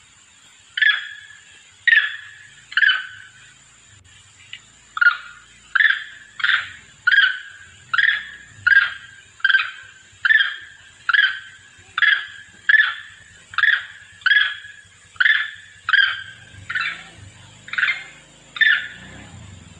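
Long-tailed macaque calling to its troop: about twenty short, sharp calls, the first three about a second apart, then after a short pause an even string of calls a little under a second apart.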